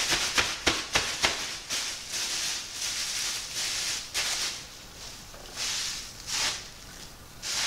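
Thin plastic grocery bag crinkling and rustling in a gloved hand as it is crumpled and dabbed onto wet spray enamel. There are quick crackles in the first second, then longer swishes every second or so.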